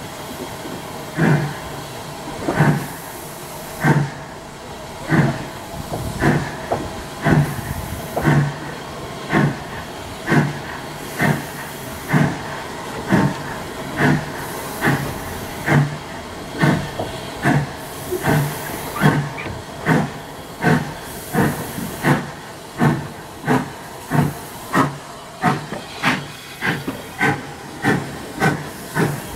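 Steam locomotive's exhaust beats heard from a carriage window as the train pulls away: evenly spaced chuffs over a steady hiss, quickening from under one a second to nearly two a second as the train gathers speed.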